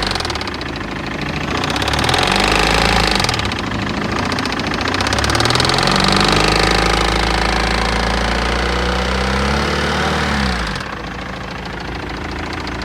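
BMW E60's 2.0-litre four-cylinder diesel engine revved up twice, the second time held for several seconds, then dropping back to a steady idle near the end. The engine is being checked for a knocking noise at idle.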